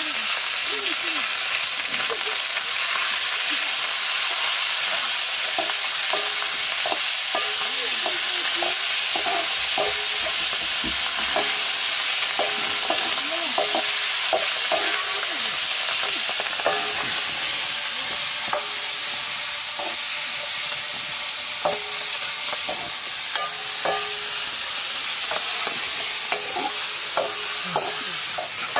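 Food sizzling and frying in a wok, with a steady hiss. From about five seconds in, a metal ladle scrapes and clinks against the pan over and over as the food is stirred.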